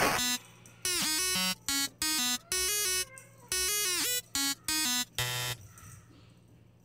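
Electronic music: a run of short, buzzy synth notes, some bending in pitch, that stops abruptly about five and a half seconds in, leaving faint room tone.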